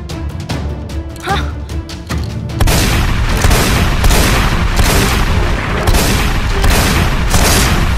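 Action-movie soundtrack: dramatic music with a rapid string of loud booms and gunshot-like effects. It jumps much louder about two and a half seconds in.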